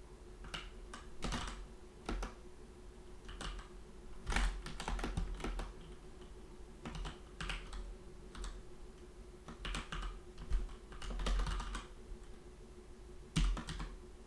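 Computer keyboard typing in short, irregular bursts of keystrokes with pauses in between.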